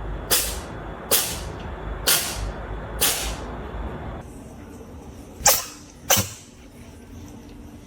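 A cat sneezing six times, each a short sharp hissing burst: four about a second apart, then two more close together after a pause of about two seconds.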